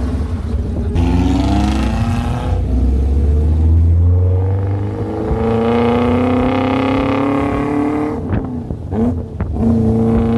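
Suzuki Samurai engine pulling through the gears: its pitch rises, falls back at each shift and rises again. A few knocks and a brief choppy dip come near the end.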